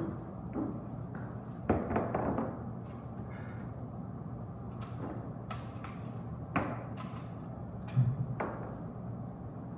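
Bowls, a spoon and glasses knocking and clinking on a countertop as pie is served from a foil pie plate into small bowls: a series of separate knocks, the loudest about two seconds in and again near the end, over a steady low hum.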